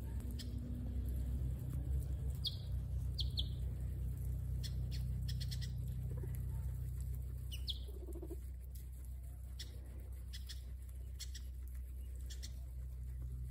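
Guinea pigs munching fresh grass: scattered crisp crunching clicks over a steady low rumble, with a few short high chirps a couple of seconds in and again around the middle.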